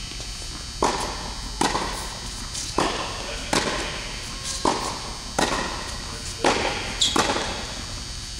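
Tennis ball being struck by racket strings and bouncing on a hard court in a rally, sharp pops about once a second, echoing in a large indoor hall.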